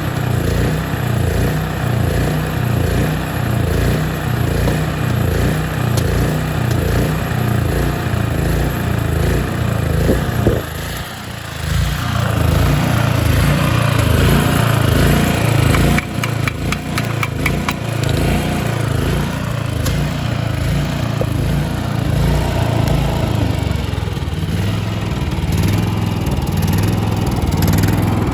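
Engine of a Shindaiwa EGW185M-IST sound-proofed engine welder-generator running steadily, its level dipping briefly about 11 seconds in. Sharp crackling clicks come in around 16 to 18 seconds.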